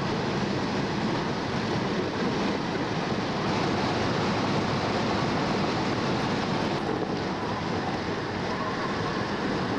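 Steady road noise inside a vehicle cruising at freeway speed: tyre and wind noise with the engine underneath.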